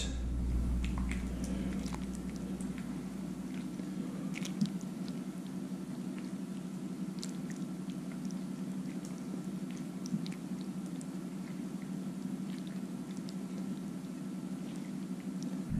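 Stir fry being spooned from a wok onto a plate of rice: soft, wet squishing plops of food and light clicks of the serving spoon against the pan, over a steady low hum.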